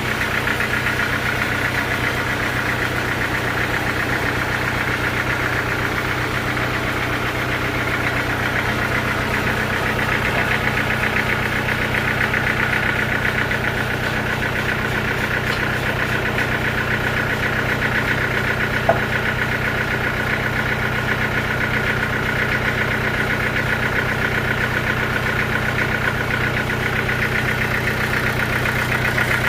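An engine running steadily at a constant speed with an even, rapid firing pulse. A single short click about nineteen seconds in.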